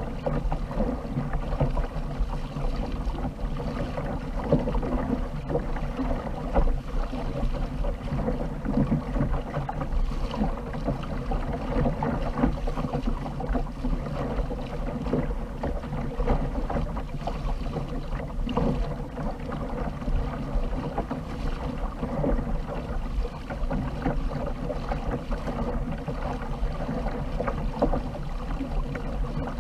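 Water rushing and lapping steadily along the hull of a fishing kayak under way on the open sea, with wind buffeting the microphone.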